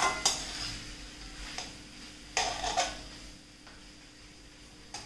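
A slotted spatula stirring and scraping mutton and chopped tomatoes in a metal kadai, a few strokes in the first three seconds, over a low sizzle of the frying masala. The stirring stops about three seconds in, leaving the faint sizzle.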